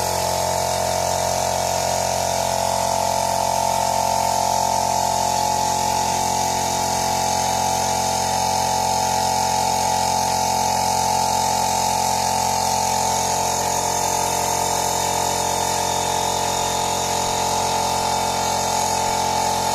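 A motor running steadily with an unchanging hum.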